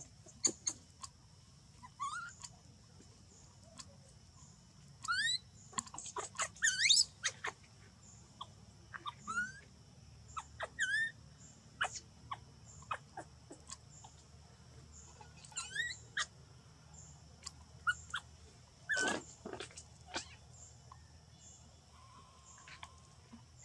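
Baby macaque giving short, high, rising squeals in several clusters, the loudest about seven seconds in and another near nineteen seconds, with scattered small clicks between them.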